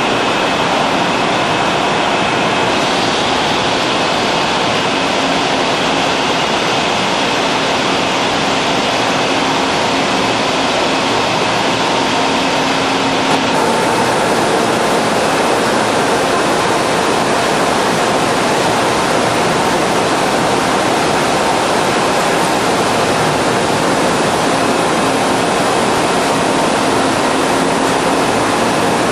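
Kyocera MSR heavy milling cutter with carbide inserts taking a heavy cut on a ship engine block, a steady loud machining noise with a faint hum underneath. The noise turns brighter about halfway through.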